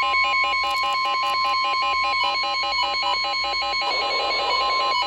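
Electronic emergency alert tone for a severe thunderstorm warning: a steady high tone near 1 kHz over a rapid, repeating two-pitch warble that sounds like a ringtone. A patch of hiss joins it about four seconds in.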